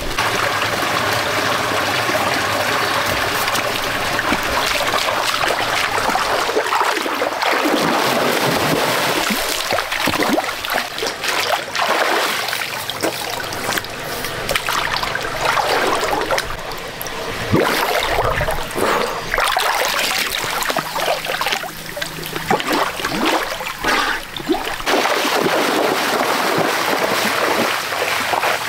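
Running water trickling and splashing, a steady rush with many brief splashes.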